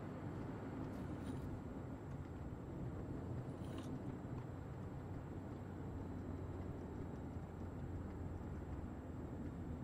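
Steady engine drone and tyre noise heard inside the cabin of a 2005 Fiat Punto II, its 1.2-litre four-cylinder petrol engine pulling evenly while cruising.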